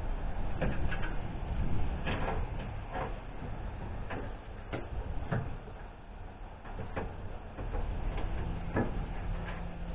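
Aluminium radiator being worked by hand into its mounts in the radiator support, giving light, irregular knocks and scrapes of metal every second or so over a steady low rumble.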